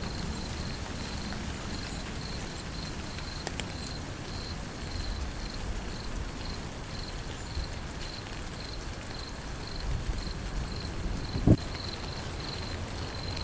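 Steady rain with a low rumble underneath, and a cricket-like insect chirping in an even, pulsing trill. A single dull thump about two seconds before the end is the loudest sound.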